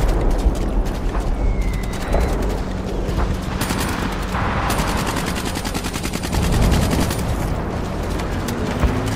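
Battle sound effects: a deep explosion rumble fading at the start, then scattered gunshots over a steady low rumble. From about four to seven seconds in comes a long run of rapid, evenly spaced machine-gun fire.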